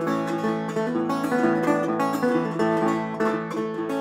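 Metal-bodied resonator guitar played solo, picked notes moving over steady low bass notes.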